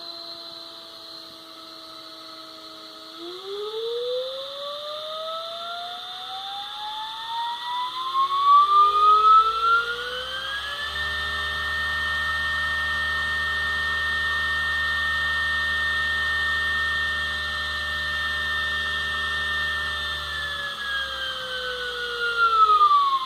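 Heinzmann PMS 120 water-cooled axial flux motor driven by a Lebowski field-oriented controller, its electric whine rising steadily in pitch as it speeds up for about eight seconds, holding at speed, then falling as it slows near the end. A steady high tone and a low hum sit under it.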